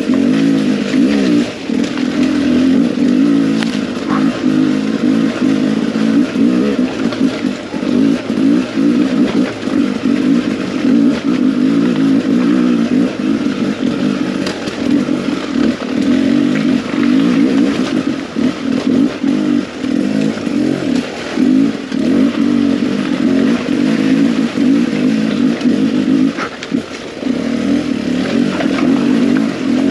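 Beta 300 RR two-stroke single-cylinder enduro motorcycle engine running hard with the throttle constantly opening and closing, with a short drop in engine sound late on.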